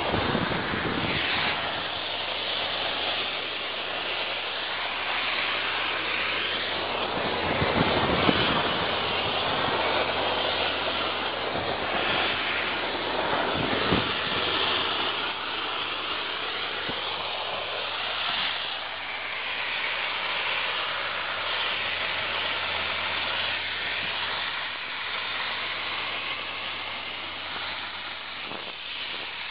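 Steady rushing noise of rain and wind on the microphone, with a low steady hum underneath. A couple of knocks from handling the camera come about eight and fourteen seconds in.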